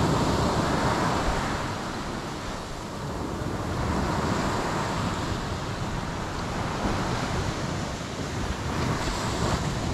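Wind buffeting the microphone, with the steady wash of sea waves on the shore behind it.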